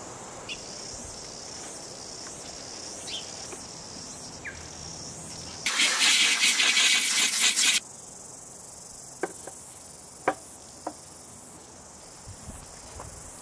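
Insects chirring steadily in the background. About halfway through, a loud high buzzing hiss lasts about two seconds and stops abruptly. Near the end come a few sharp clicks, like a tool against metal.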